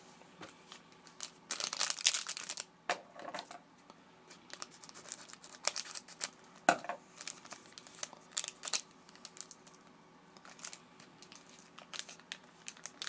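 Trading-card pack wrapper crinkling and tearing, loudest about two seconds in, followed by scattered clicks and rustles of cards being handled.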